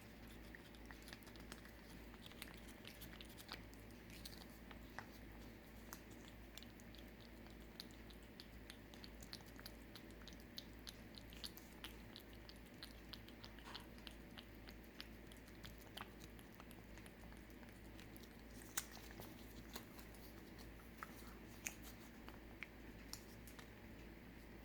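A cat eating a Ciao Churu lickable puree treat, with a faint, steady run of small wet licking and chewing clicks and a few louder clicks in the second half.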